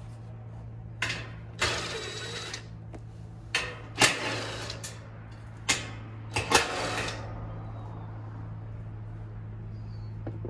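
Residential AC condenser unit humming steadily while running, with a cordless drill-driver whirring in about six short bursts during the first seven seconds.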